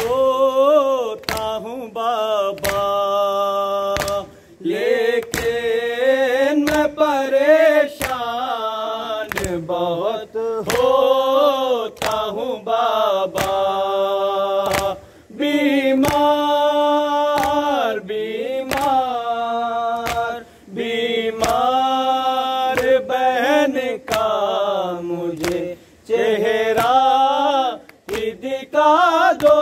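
A man chanting a nauha, a Muharram lament, in long wavering held notes, with short pauses for breath. Chest-beating (matam) slaps strike in a steady beat, roughly three every two seconds.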